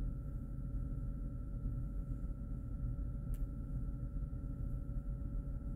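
Steady low room rumble with a faint, even hum, and one soft click a little past halfway.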